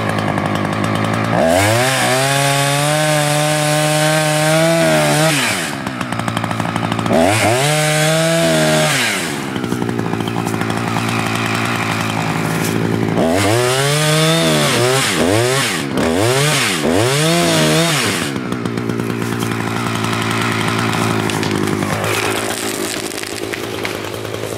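Husqvarna 359 59 cc two-stroke chainsaw running, throttled up to high revs five times and falling back between bursts: the first burst lasts about four seconds, the last three come close together. It is making the felling cuts in a standing tree, and it runs more quietly near the end.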